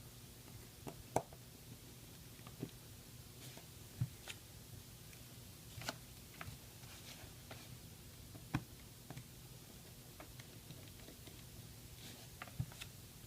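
Faint, irregular little clicks and taps of a small screwdriver and metal tools on an iPhone 6 Plus's frame as its tiny side screws are taken out, over a low steady hum.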